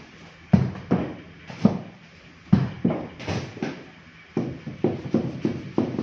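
Irregular sharp knocks and scrapes from hand tools, a wooden stirring stick and a spatula, striking and scraping the sides of mixing bowls and a board while pigmented resin is mixed, about a dozen in all.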